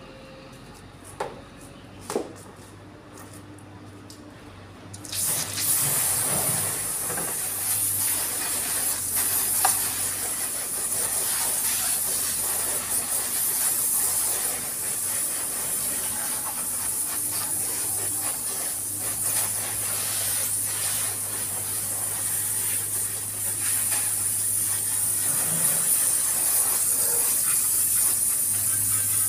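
Garden hose spraying water onto a motorcycle's bodywork: a steady hiss of spray and splashing that starts suddenly about five seconds in. Before it, a couple of light knocks.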